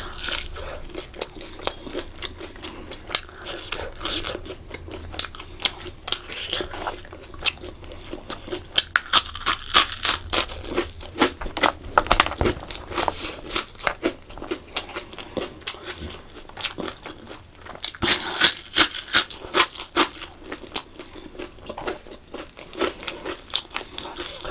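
Close-miked chewing and crunching of food during a mukbang, a run of small wet clicks and crackles with two spells of louder crisp crunching, about nine seconds in and again near eighteen seconds.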